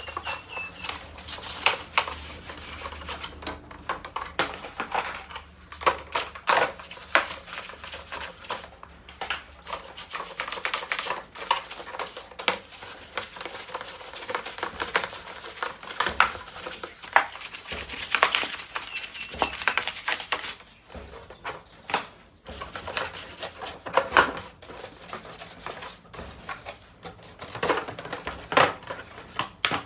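Irregular clicks, taps and scraping of hands-on work with hard objects, like parts being handled and scrubbed.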